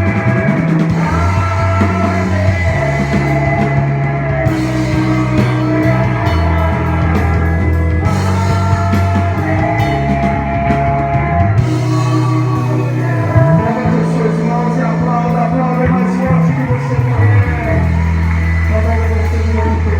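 Worship band music with singing, over a steady sustained bass line that changes note every couple of seconds.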